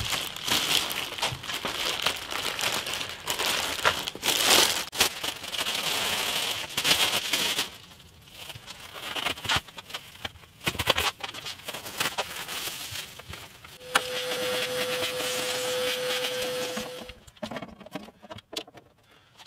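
Clear plastic wrapping rustling and crinkling as a new keyboard keybed is unwrapped and handled, with crackles and light knocks of the plastic keys. Near the end a steady hum with a single held tone runs for about three seconds and then cuts off.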